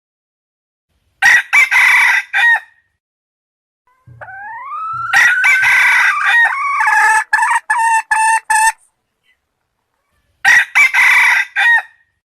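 Wild junglefowl roosters crowing, three times: a short crow about a second in, a long crow starting about four seconds in that opens with a rising note and breaks up into pulses at the end, and another short crow near the end.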